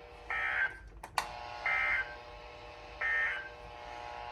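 Emergency Alert System SAME digital data bursts: three short warbling two-tone bursts about 1.4 s apart, the end-of-message code that closes the alert. A pair of sharp clicks comes about a second in, over a faint steady buzz.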